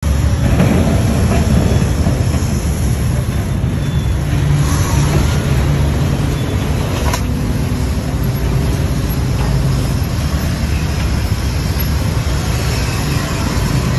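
A ferry's diesel engine running, a loud steady low rumble with a faint hum, and one sharp click about seven seconds in.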